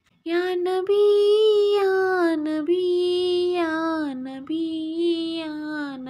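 A woman singing a naat in Urdu with no accompaniment: a single voice drawing out long, slowly bending notes in short phrases. It starts after a brief silence at the very beginning.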